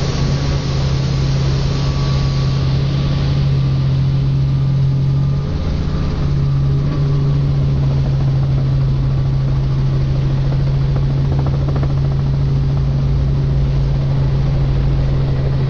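Helicopter in flight, heard from inside the cabin: a loud, steady low engine and rotor hum with a fast throb beneath it, briefly wavering about five and a half seconds in.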